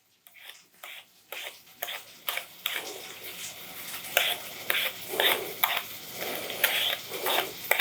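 Vegetable peeler scraping the skin off a potato in quick repeated strokes, about two a second, getting louder as it goes on.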